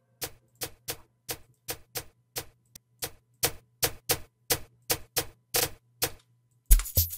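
Programmed amapiano percussion loop in FL Studio: short clicky hits about three a second over a faint low steady tone, growing louder about halfway through, with heavier low hits near the end.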